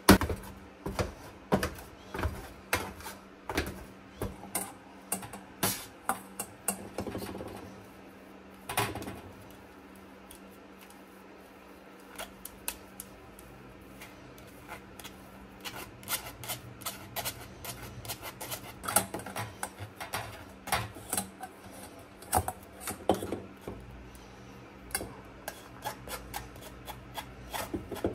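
Wire potato masher knocking and clattering against a stainless steel tray as boiled potatoes are mashed, about two strikes a second. After a quieter stretch, a spoon scrapes and taps against a fine-mesh metal sieve and steel bowl as the mash is pushed through, in quicker, irregular clicks.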